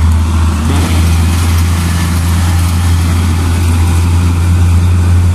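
Diesel engine of a Sany concrete mixer truck passing close by, a steady low drone.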